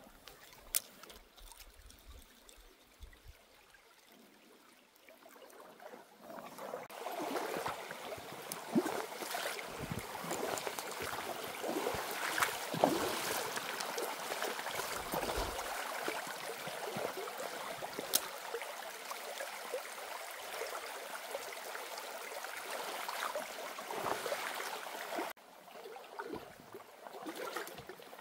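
Small stream running over stones, growing louder about seven seconds in, with scattered small clicks and knocks. The water sound drops abruptly near the end.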